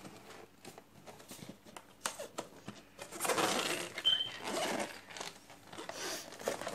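An action figure's cardboard-and-plastic packaging being handled and torn open: scattered clicks and rustles, with a louder stretch of tearing and crinkling in the middle.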